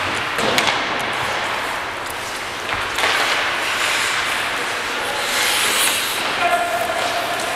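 Ice hockey skate blades scraping and carving across the ice during play, heard close up from a helmet-mounted camera, with a few sharp clacks about half a second in.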